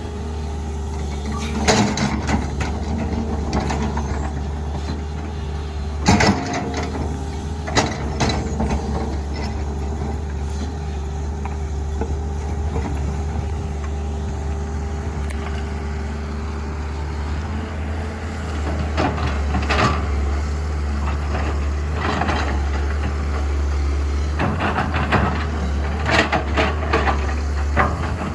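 SANY SY205C excavator's diesel engine running steadily, with several sharp knocks and clanks of the machine at work, a cluster of them near the end.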